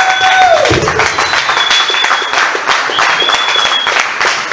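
Audience applauding and clapping after a comedian's closing line. A long held voice call fades out about a second in, and two short high whistles come later.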